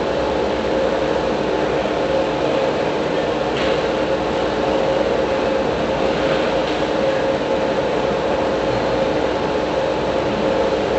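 Indoor ice rink ambience: a steady mechanical hum with a constant tone, with a couple of faint knocks from play at the far end of the ice.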